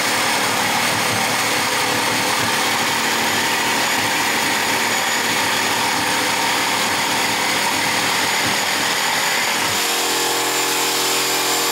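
Electric jigsaw, mounted upside down under a jigsaw table, running steadily as its blade cuts through a thick wooden block. About ten seconds in the cut finishes and the low rasp of the blade in the wood drops away, leaving the saw running free with no load.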